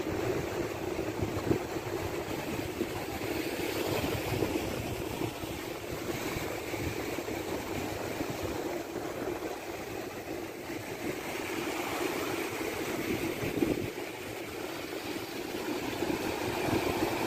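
Wind blowing on the microphone over the wash of sea waves, a steady noise that swells and eases.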